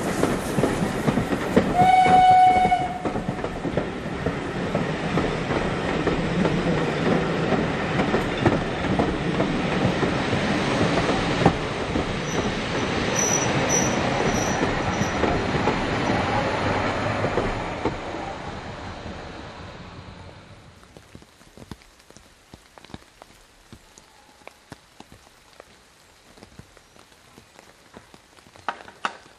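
Steam-hauled passenger train passing and pulling away: coaches rumbling and clattering along the track, with a short whistle about two seconds in. The rumble fades away over the following seconds, leaving faint scattered ticks.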